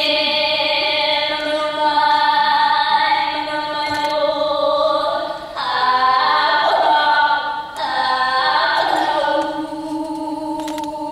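Women's voices chanting a Hawaiian oli in unison, on long held tones that break for a breath about five and a half seconds in and again a couple of seconds later.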